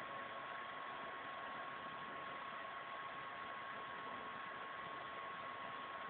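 Steady background hiss of the recording with a thin, steady high whine running through it; no other distinct sound.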